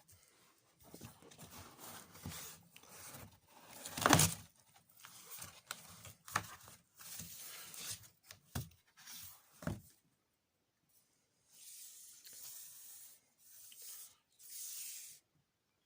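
Scraping, rubbing and tearing noises of hand work on building material, with one sharp knock about four seconds in and hissy scraping strokes near the end.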